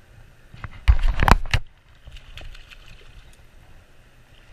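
Handling noise around a spinning fishing reel being worked by hand, close to the microphone: a loud, rough scuffing burst lasting a little under a second about a second in, then fainter rubbing and ticking.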